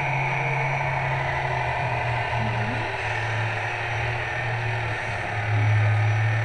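Radio-controlled model trucks running on an indoor track: a steady low engine-like drone that gets louder about five and a half seconds in, as a truck passes close.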